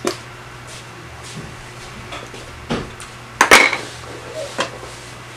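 A few short clicks and clatters of small hard objects being handled and set down, such as makeup containers and tools on a table; the loudest clatter comes about three and a half seconds in.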